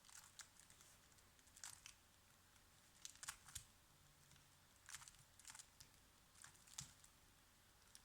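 Faint plastic clicks and rasps of a 3x3 Rubik's Cube's layers being turned, coming in short groups every second or two as a sequence of moves is carried out.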